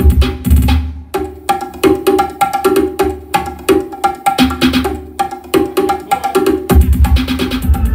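Music with fast, clacking percussion and a heavy bass line, played loud through a car audio system with a subwoofer box.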